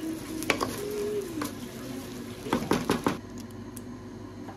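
A wooden spoon stirring basmati rice in a metal cooking pot, knocking and scraping against the pot, with a quick cluster of knocks about two and a half seconds in.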